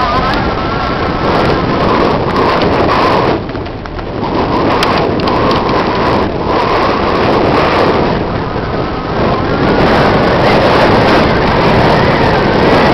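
Wind rushing over a helmet-camera microphone on a fast mountain-bike descent, mixed with the tyres rolling over a dirt singletrack; the noise dips briefly a few seconds in.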